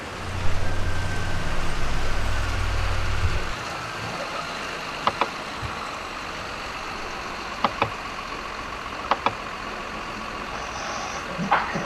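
Heavy diesel engine running steadily, loud at first, then falling back to a quieter hum about three and a half seconds in. Over the quieter hum come three pairs of sharp knocks a couple of seconds apart.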